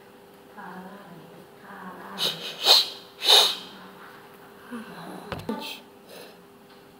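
Breathy vocal sounds from a person: a soft voice, then two loud hissing breaths close together, followed by smaller hisses and a short low thump.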